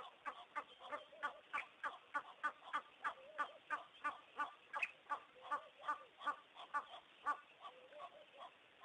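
A steady run of short, pitched animal calls, repeating evenly about three times a second.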